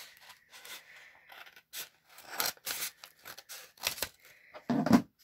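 Scissors snipping open a mailing envelope in a series of short, separate cuts, with a louder thump near the end as the envelope is handled.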